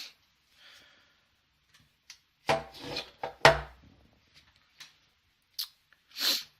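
Handling noise from a Glock 26 pistol and its magazine: two heavy knocks about two and a half and three and a half seconds in, the second the loudest, then a few light clicks.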